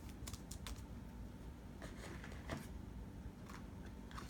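Faint rustling and light plastic ticks, scattered at irregular moments, of a trading card being slid into a plastic card sleeve by hand.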